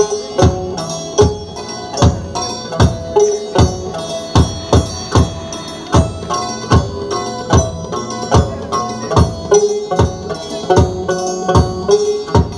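Instrumental music with a steady drum beat, a little more than one stroke a second, under a held melodic line.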